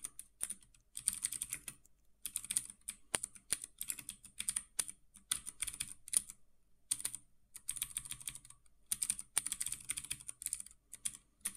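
Typing on a computer keyboard: quick bursts of key clicks with short pauses between them.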